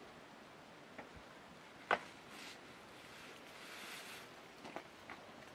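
Faint hand work with carrots: a few light knocks and clicks, the loudest about two seconds in and a small cluster near the end, with a brief soft rustle in between.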